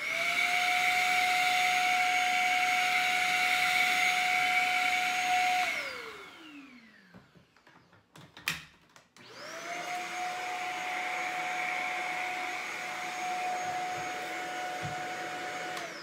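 Shark Apex stick vacuum's motor switched on, running steadily with a high whine and airflow hiss for about six seconds, then switched off and winding down with a falling whine. After a click it starts up again about nine seconds in and runs until it is switched off at the very end.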